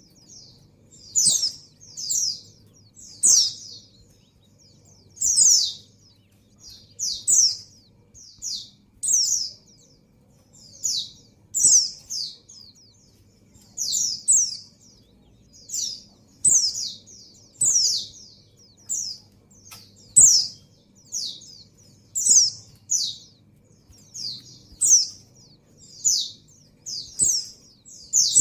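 Female white-eye (pleci) calling: short, high, downslurred notes about once a second, sometimes two in quick succession. These are the calls of a hen in breeding condition calling for a male.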